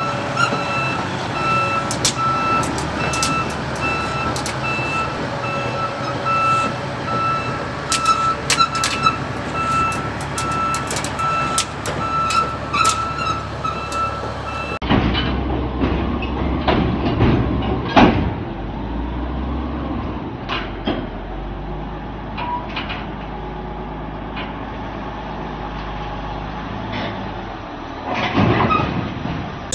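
HD22C crawler bulldozer's diesel engine running, with its steel tracks clanking and clicking and a reversing alarm beeping at a steady pace. After a cut about fifteen seconds in, a bulldozer engine labours with track clanks as it climbs a trailer ramp, with a loud clank about eighteen seconds in.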